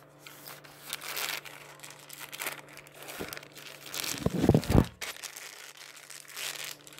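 Plastic toy packaging being handled and crinkled in a series of short crackles, with a loud burst of knocks and bumps about halfway through.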